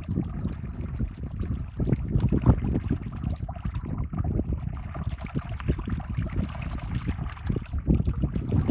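Wind buffeting the microphone in uneven gusts, over the steady trickle of a small moorland stream.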